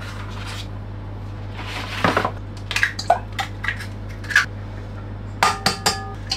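Kitchenware clatter around a stand-mixer bowl: irregular sharp clinks and knocks, a brief scrape about two seconds in, and a quick run of ringing clinks near the end, over a steady low hum.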